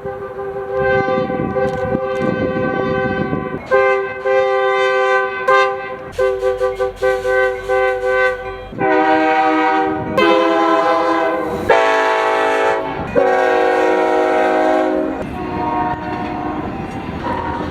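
Locomotive air horns sounding, several different horns in a string of short clips, each one a steady chord of several notes. About six seconds in, one sounds a run of quick short blasts. Longer blasts follow, and a low rumble sits under the first few seconds.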